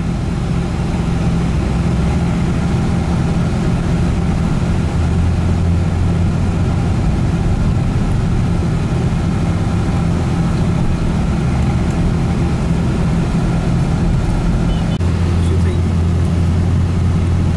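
Steady engine and road noise of a vehicle heard from inside its cabin while driving in traffic, a constant low hum that grows heavier about three-quarters of the way through.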